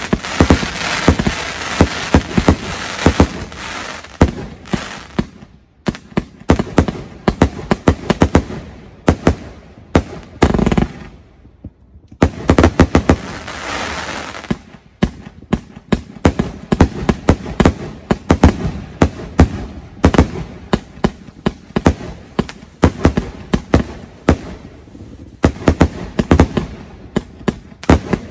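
A 200-shot firework cake firing in rapid succession: a long stream of sharp reports from shells launching and bursting. There are stretches of dense crackle near the start and around the middle, and brief lulls about six and twelve seconds in.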